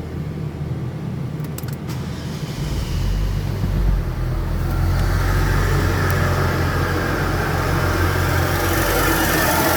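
2012 Buick Regal GS's engine running with a steady low hum, with a few sharp clicks about a second and a half in; from about three seconds on the sound grows steadily louder and fuller. The clicks are the kind of clicking the owner is asking about, cause unknown.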